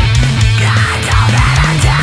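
Heavy metal-style music: a low guitar riff of held notes that step in pitch, over regular drum hits.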